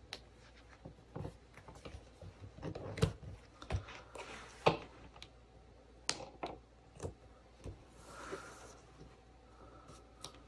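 Hands pressing and smoothing a washi sticker strip onto a paper planner page: scattered light taps and paper rustles, with a brief longer rustle about eight seconds in.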